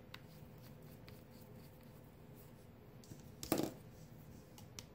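Quiet room tone with faint handling clicks, and one light knock about three and a half seconds in as a small plastic craft item is set down on the work table.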